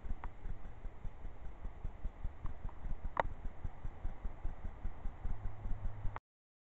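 Low, uneven rumble of wind or handling on a camcorder microphone, with faint scattered clicks and one brief sharp snap about three seconds in; the sound cuts out abruptly shortly before the end.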